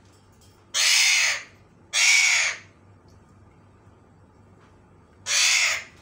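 Alexandrine parakeet giving three loud, harsh screeching calls, each under a second long: two close together about a second in, the third near the end.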